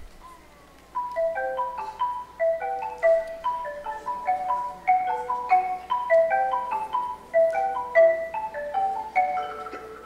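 Tuned mallet percussion playing a quick solo run of short, separate notes in repeating broken-chord patterns, about six notes a second, starting about a second in.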